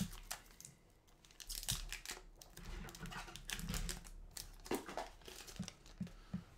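Trading-card pack wrapper crinkling and tearing as a hockey card pack is opened and handled, with a few soft taps near the end.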